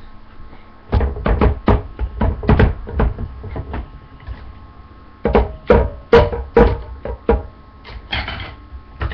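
A small djembe hand drum played by hand: two short runs of quick strikes with a pause between them, and a sharper, noisier hit near the end.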